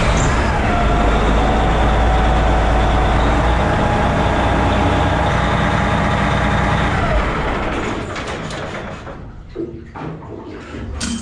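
MTU Detroit Diesel Series 60 marine diesel running close up in the engine room, just started for its first run after an oil change: a loud steady rumble with a whine that rises at the start. About seven seconds in it is shut off, the whine sliding down as the engine runs down.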